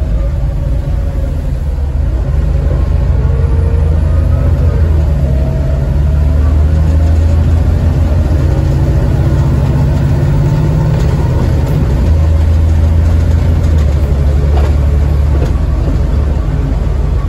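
Volvo B7TL double-decker bus's engine running under way, heard inside the upper deck as a heavy low drone whose note steps up and down several times as the bus pulls away and changes gear.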